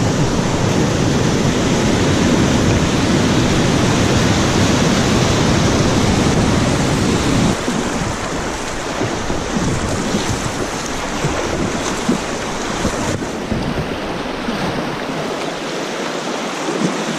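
Loud rushing whitewater: a river pouring over a weir, then, after a cut about seven and a half seconds in, river rapids heard from a kayak running through them, the deep rumble gone and the rush thinner.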